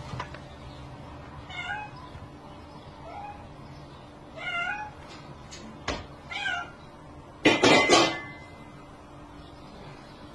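A domestic cat meowing in alarm at a snake, four short meows a second or two apart. A sharp click comes just before the last meow, and near the end there is a loud, harsh burst lasting under a second.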